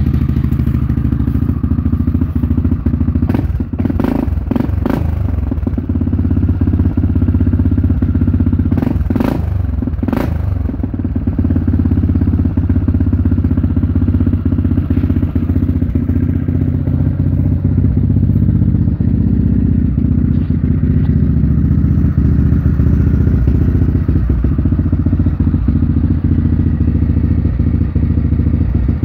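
2001 Yamaha Grizzly 600's single-cylinder four-stroke engine idling steadily in neutral through an aftermarket muffler. A few brief knocks come about four seconds in and again around nine to ten seconds in.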